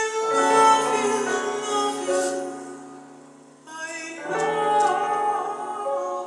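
Several voices singing sustained notes in harmony, in two long phrases with a brief breath between them.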